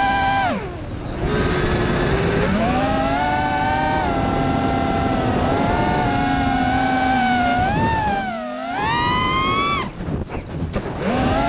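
FPV quadcopter's brushless motors and propellers whining, the pitch rising and falling with the throttle. About half a second in the whine drops steeply in pitch and level, it dips again around 8 s, and it cuts in and out in short stutters around 10 s.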